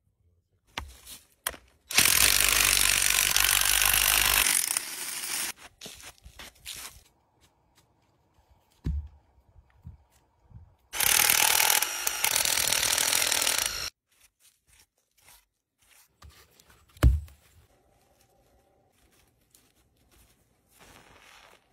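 Power drill boring into a wooden log, in two runs of about three seconds each, with scattered knocks and wood-handling sounds between them and one loud thump about two-thirds of the way through.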